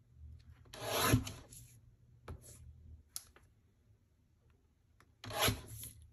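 Sliding-blade paper trimmer cutting a photo: a rasping slide about a second in, the loudest sound, and a second one near the end, with a few light clicks of paper handling between.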